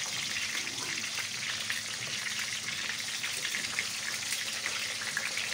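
Whole green bell peppers and tomatoes frying in olive oil in a pan over a low gas flame: a steady crackling sizzle of many small pops.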